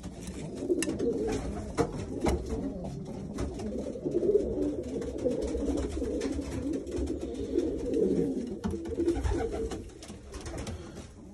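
Racing pigeons cooing: a low, continuous rolling coo, with a few short clicks here and there.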